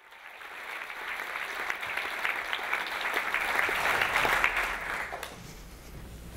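Audience applauding. It swells in the first second and dies away about five seconds in.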